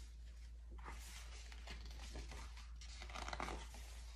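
Faint rustling, scraping and light taps of a cardboard lift-the-flap picture book being handled and opened, with a small cluster of ticks a little past three seconds in. A low steady hum runs underneath.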